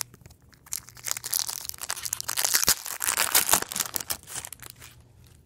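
Foil wrapper of a 1999 Donruss football card pack crinkling and tearing as it is ripped open by hand. The dense crackle starts about a second in and stops after about three seconds.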